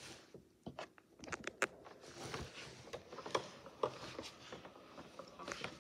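Faint scattered clicks and knocks of hands handling a plastic toy ride-on car's steering wheel, with a small cluster about a second in.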